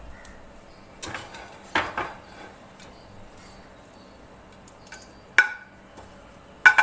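A metal spoon clinking against metal cookware as spices are tipped into an aluminium pressure cooker: about five sharp clinks with a short ring, in two clusters, the loudest near the end.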